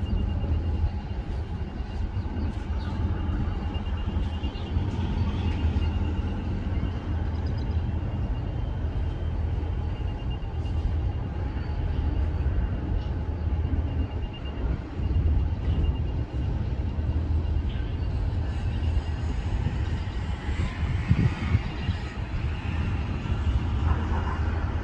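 Train running, a steady low rumble, with a faint high pulsing tone through the first part.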